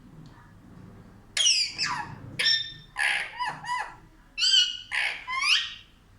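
Pet parrot calling: a quick run of about eight sharp, harsh squawks, starting about a second in.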